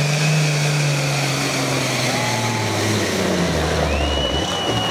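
Diesel semi truck pulling a weight-transfer sled, its engine running hard under load and then dropping in pitch about three seconds in. Near the end a high whistle rises and holds, over crowd voices.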